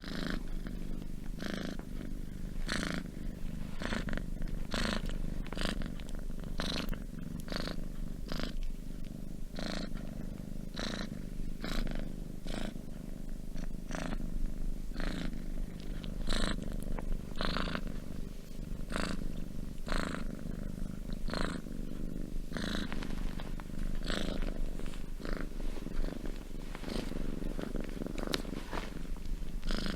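Domestic cat purring steadily: a continuous low rumble with a breathy rasp about once a second as it breathes in and out.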